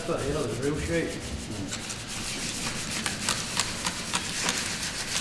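Alloy car wheel rims being hand-sanded with emery paper: repeated short, scratchy rubbing strokes from about two seconds in, with low talk under it at first.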